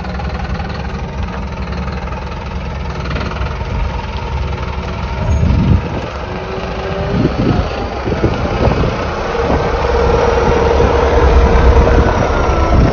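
Mercedes Vario 818 D truck's diesel engine running at low revs as the truck rolls slowly down a gravel drive, getting louder as it comes close.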